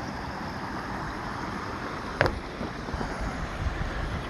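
Adjustable garden spray nozzle on its mist setting, with water hissing steadily from it. There is a single sharp click about two seconds in.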